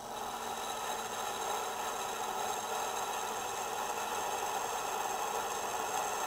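Small bench mill-drill running steadily as a 2.7 mm bit is fed into a cast-iron piston blank, drilling the wrist-pin hole.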